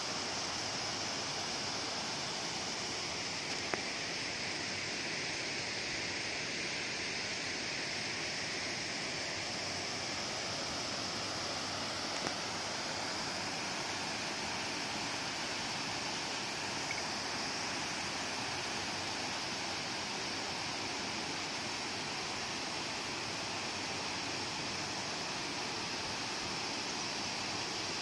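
Steady rush of water spilling over a dam's curved spillway gates and splashing into the pool below.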